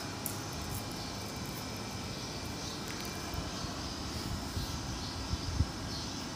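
Steady low background rumble with one short thump about five and a half seconds in.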